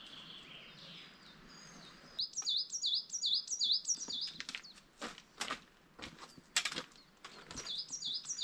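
A songbird singing a quick run of repeated high, swooping notes, a few per second, with some sharp clicks among them. Before the song starts, about two seconds in, there is only a faint even background hiss.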